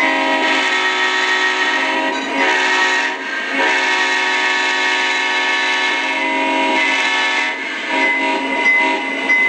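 Sound-equipped O scale model of a Union Pacific diesel locomotive blowing its multi-chime horn. It sounds in several blasts, the longest about four seconds in the middle. The horn comes through a small onboard speaker, so it has no deep bass.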